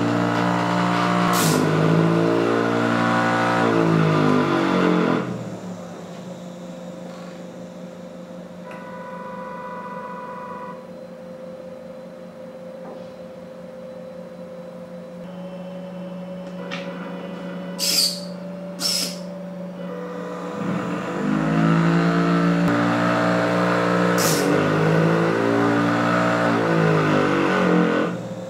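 Stepper motor whining in stepped, rising and falling pitches as it swings the match-holding arm, then dropping to a quieter steady motor hum. Two sharp clicks come near the middle, and the stepped whine returns near the end as the match is lit.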